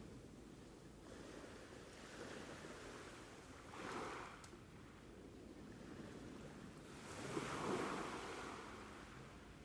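Ocean waves washing ashore, with two swells of surf, a short one about four seconds in and a louder, longer one near the end.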